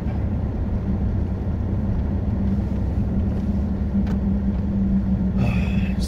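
Car cabin noise while driving: a steady engine hum at a constant pitch over a low road and tyre rumble.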